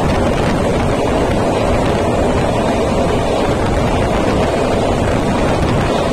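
Wind buffeting a microphone held outside a passenger train coach running at speed, mixed with the steady rumble of the train on the track.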